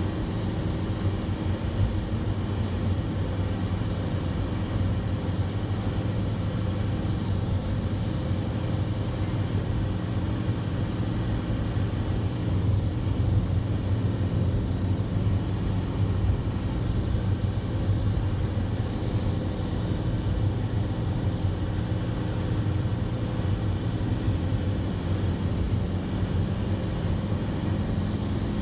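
A road vehicle travelling steadily at speed, heard from on board: a constant low engine drone mixed with tyre and road noise.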